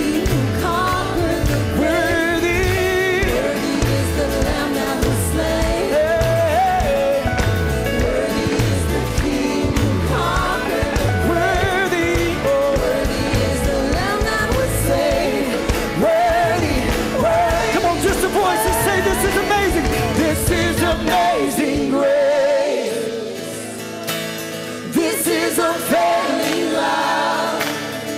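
Live worship music: several voices singing a praise song over a band, with a repeating low beat under it. About three-quarters of the way through the low beat drops out, leaving the voices over lighter, quieter accompaniment.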